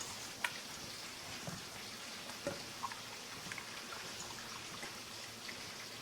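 Steady crackling sizzle of food frying in hot oil, with a few faint scattered clicks.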